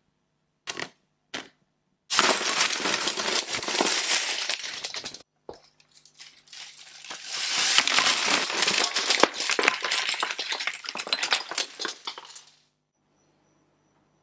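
Two single clicks, then two long runs of dense clattering from many small plastic Lego pieces landing on each other: the first about three seconds long, the second about five, each ending abruptly.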